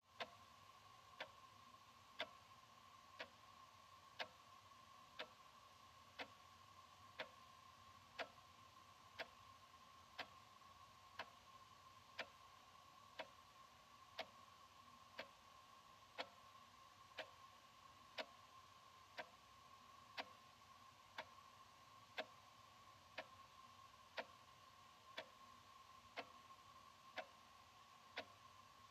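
Analog wall clock ticking steadily, one sharp tick a second, over a faint steady hum.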